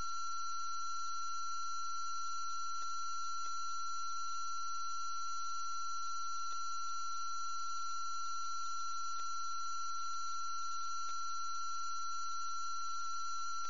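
A steady, unchanging electronic tone with fainter steady tones above it, broken only by about five faint clicks spread through it.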